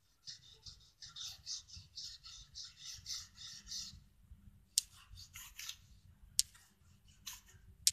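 A cotton bud rubbed back and forth over coloured pencil on a flat wooden bauble to blend it: quick rhythmic scratchy strokes for about four seconds, then after a short pause a few sharper scrapes.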